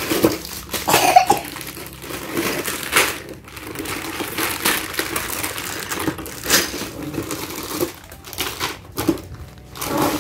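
Packaging of a toy dollhouse kit crinkling and rustling as parts are taken out: plastic bags of parts and the cardboard box and paper insert, in irregular rustles with a few sharp crackles.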